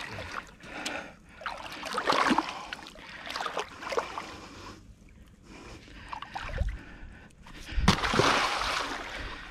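Shallow water splashing in irregular bursts as a released bull shark is eased back into the water, loudest about eight seconds in.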